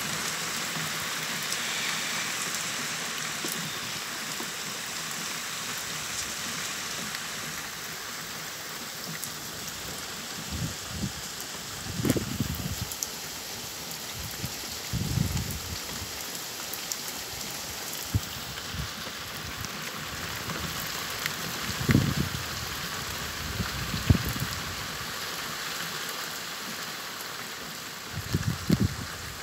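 Steady rain falling on a gravel garden bed, plants and a small pond: an even hiss of drops. A few short, low thumps break in through the second half.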